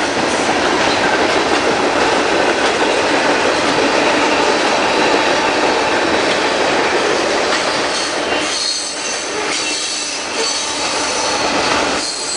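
Freight train cars loaded with lumber rolling past close by: a loud, steady rumble and rattle of steel wheels on the rails. Thin, high squeals from the wheels come in about two-thirds of the way through.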